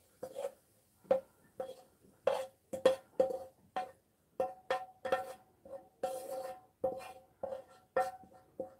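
A frying pan knocked and tapped over and over while stir-fried vegetables are emptied out onto a plate. There are about two to three knocks a second, unevenly spaced, each with a short metallic ring at the same pitch.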